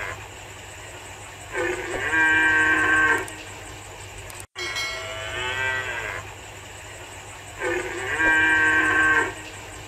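Fallow deer calling: drawn-out pitched calls of about a second and a half each, repeating about every three seconds, with a brief cut-out just before the second call.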